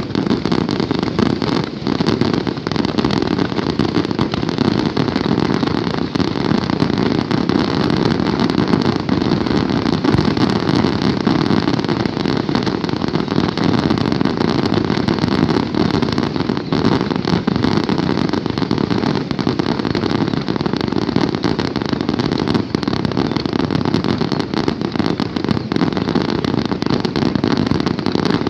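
Fireworks barrage firing without a break: a dense, unbroken stream of crackling and popping bursts over a constant low rumble.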